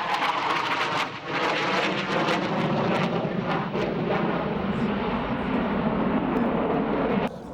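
Panavia Tornado IDS jet with its two RB199 turbofans running loud in a low pass, its pitch falling steadily as it goes by. The sound cuts off suddenly near the end.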